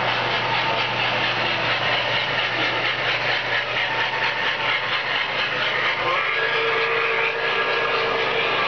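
Model trains running around a large layout: a steady rolling clatter of wheels on the track over a low steady hum. About six seconds in, a steady tone joins.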